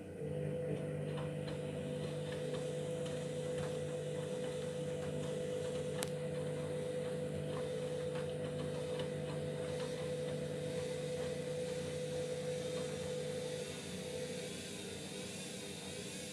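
Candy washing machine's motor turning the drum with a steady hum while it tries to balance an out-of-balance load of bedding and towels before spinning, with light knocks and clicks from the drum. The motor hum stops about 14 seconds in.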